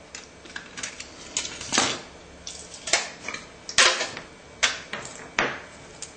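Plastic parts of a disposable camera being pried and snapped apart by hand and screwdriver: a string of irregular sharp clicks and snaps.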